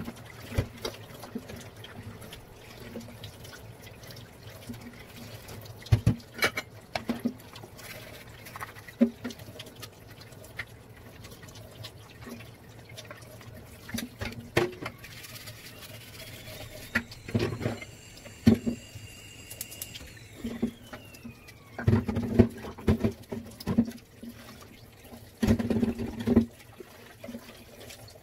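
Kitchen clean-up sounds: dishes and other items knocking and clattering at a sink, with water splashing and sloshing in it, over a steady low hum. Around the middle a faint thin tone slides up and then down.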